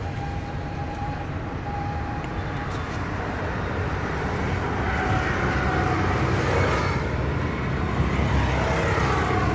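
Steady low vehicle rumble heard from inside a car cabin, growing a little louder about halfway through, with a higher whine in the second half.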